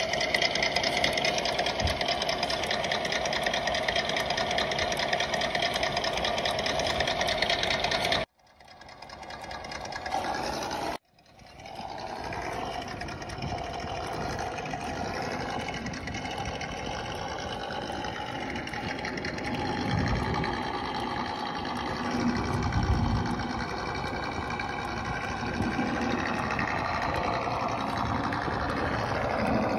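Electronic V8 engine sound from an ESS sound module in a 1/10-scale Traxxas TRX-4 crawler, idling steadily at first. It cuts off sharply about eight seconds in and comes back rougher and less even after about three seconds, with a few low thumps in the second half.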